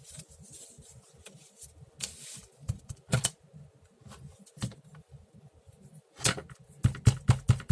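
Ink sponge dabbed on an ink pad and on paper through a punched-paper stencil: a few scattered soft taps, then a quick run of dabbing taps near the end.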